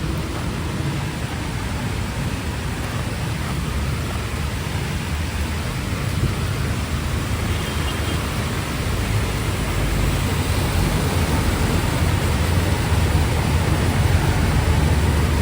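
Steady hiss of heavy rain, with the low rumble of passing vehicle engines underneath that grows louder in the second half.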